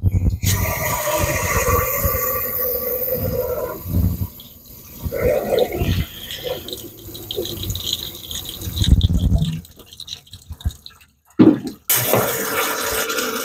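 Water from a garden hose running and splashing through the coolant openings of a car engine as its cooling system is flushed out. The flow cuts off about ten seconds in, then starts again sharply near the end.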